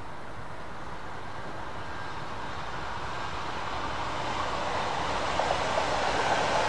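Freight train approaching on the line, its running noise growing steadily louder, with a faint steady whine above it.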